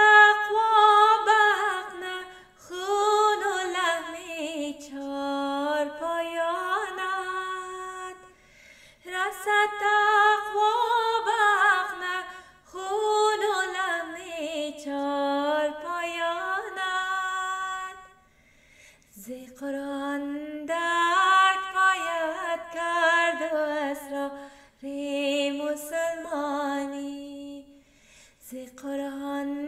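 A woman singing a devotional qasida solo and unaccompanied, in long melodic phrases with brief pauses for breath between them.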